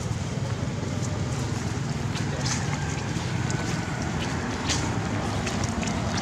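Steady low outdoor rumble, with faint scattered clicks and ticks over it.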